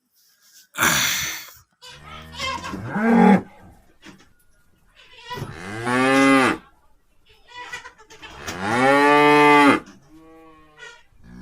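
Cattle mooing: a short breathy burst about a second in, then several drawn-out moos that rise and fall in pitch, the longest lasting about a second and a half, with a fainter one near the end.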